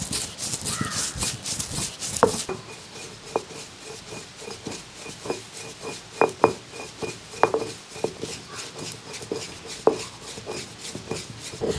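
Heavy stone roller grinding roasted dry red chillies and spices on a flat grinding stone. Rasping strokes come quickly for the first couple of seconds, then the grinding goes quieter with scattered sharp stone-on-stone knocks.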